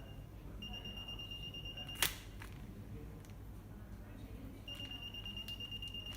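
Electronic article surveillance (EAS) anti-theft gate alarm sounding a steady high beep, the sign of a security tag detected at the gate. It holds for about a second and a half and stops at a sharp click about two seconds in, then sounds again near the end.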